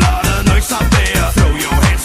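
Loud dance music with a steady kick-drum beat, played for a dance routine.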